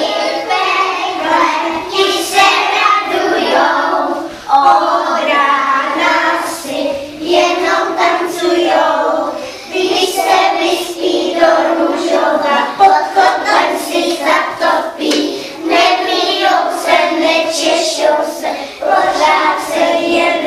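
A group of young children singing a song together, with hand claps through the song.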